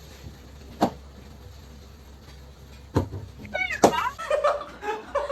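A few sharp knocks, with a short cat meow about three and a half seconds in, then voices near the end.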